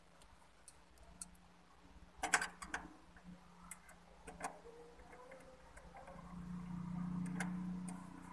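Small sharp clicks and ticks of a Phillips screwdriver seating in and turning a screw in the sheet-metal bracket of a laser printer's power supply, with a cluster of clicks about two seconds in. A low steady hum swells up in the background near the end.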